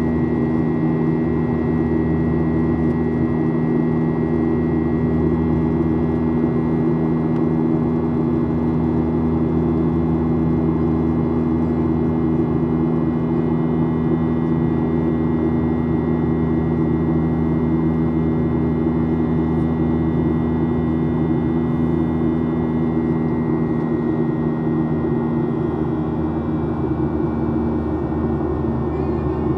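Cabin noise of a Boeing 737-800 in flight: the steady drone of its CFM56-7B jet engines and airflow, with a thin high whine that dips slightly in pitch about three-quarters of the way through.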